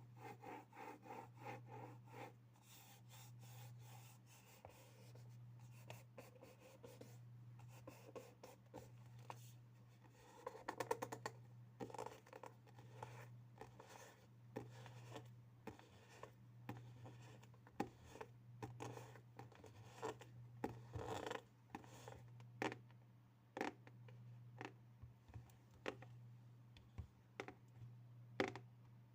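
Faint ASMR tapping and scratching on objects: many light taps and scrapes, with quick runs of rapid taps about a third of the way in and again about two thirds in.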